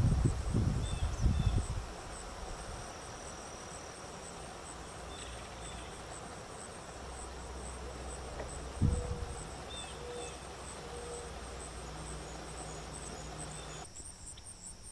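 Steady chorus of crickets and other insects, a fast pulsing high trill. Low rumbling thumps come in the first two seconds and again about nine seconds in.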